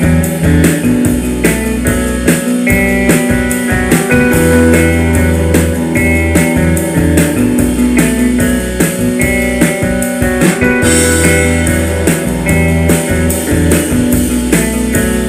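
Instrumental music with guitar and drums over a heavy, loud bass line, with a steady beat.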